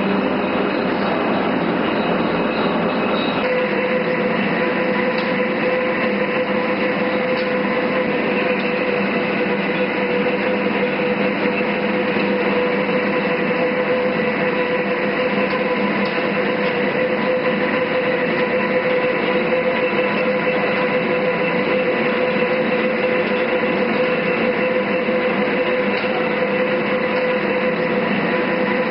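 All-geared lathe running: a steady mechanical drone with a constant gear whine, its texture shifting slightly about three seconds in.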